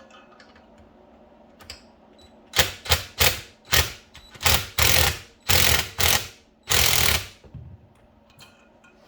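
Rapid mechanical rattling in about eight loud bursts, some short and some about half a second long, from tool work on an engine's valvetrain.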